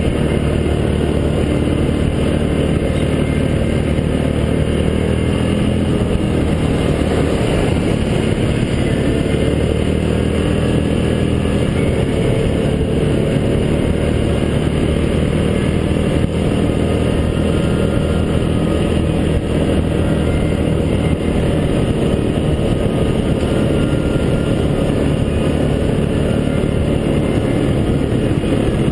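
Yamaha Grizzly 700 ATV engine running steadily under way on a trail, its note shifting slightly with the throttle.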